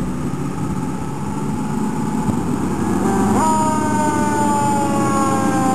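A fire engine approaching, its engine and road noise a steady rumble. About three and a half seconds in its siren comes on, jumping up in pitch and then slowly falling.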